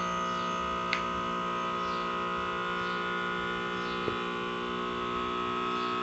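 Background music: a steady, sustained chord like a drone, with a soft note repeating about once a second and two faint clicks, about one and four seconds in.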